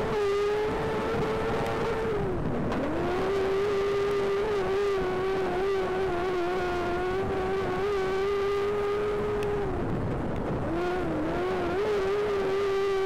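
Speedway race car engine held at high, steady revs, its note dropping sharply and climbing back about two and a half seconds in, and dipping again around ten seconds in, as the throttle is eased for the turns of the oval.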